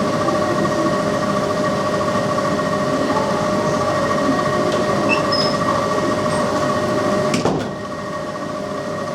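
Sanyo 280-class R22 packaged air conditioner running in heating mode: a steady blowing noise with a steady whine-like hum in it. About seven and a half seconds in there is a sharp click and the sound drops a little quieter.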